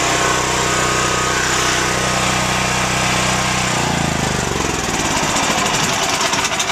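Engine of a portable generator converted to run on natural gas, running steadily. About four seconds in its sound shifts and it starts to run rough, with uneven firing growing toward the end, as the gas supply valve is closed and the engine is starved of fuel.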